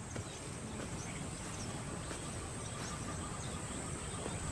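Bush ambience: a steady high insect buzz over a low rumble, with a few faint bird chirps.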